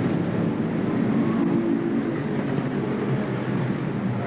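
Race car engines running at speed around the track, a loud, dense and steady drone.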